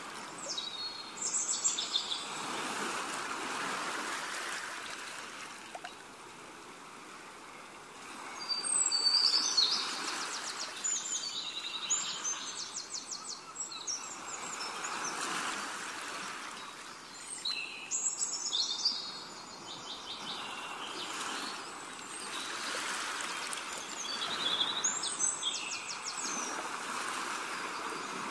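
Birds chirping in short trilled phrases every several seconds over a steady rush of flowing water, like a nature ambience track.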